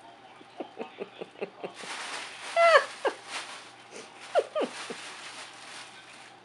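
Cats chirping while they play in a nylon play tunnel: a quick run of short chirps, then a louder falling mew and a few more chirps. The tunnel fabric rustles underneath.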